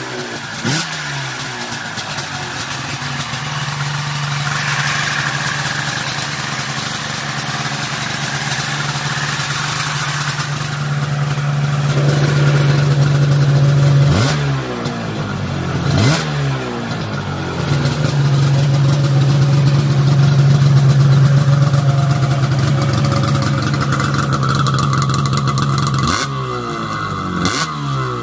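Polaris 700-based two-stroke twin snowmobile engine, bored out with 800 cylinders, running through CPI aftermarket expansion-chamber pipes. It holds a steady note for long stretches and is blipped with quick throttle revs several times, each rev rising and falling in pitch.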